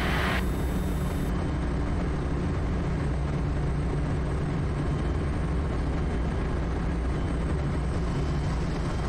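Quest Kodiak single-engine turboprop running steadily at reduced power on final approach with full flaps, slowing to 74 knots: an even drone with a low, constant hum.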